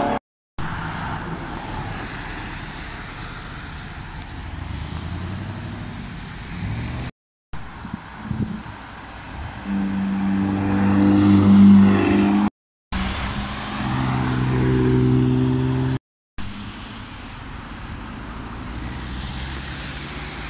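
Sports cars driving past one after another, their engines holding steady notes, with the loudest pass about twelve seconds in. The sound drops out completely for a moment four times where clips are spliced together.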